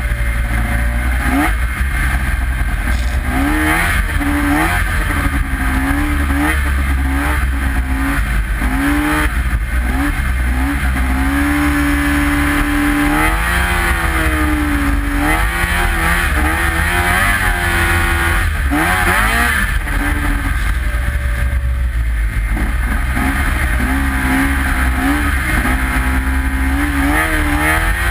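Snowmobile engine running hard and revving up and down repeatedly as the sled moves through deep snow, over a steady low rumble.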